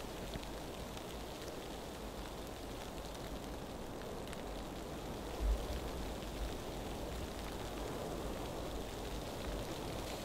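Fine, dry snow falling on tent and tarp fabric: a faint steady hiss with scattered light ticks. There is a brief low thump about five and a half seconds in.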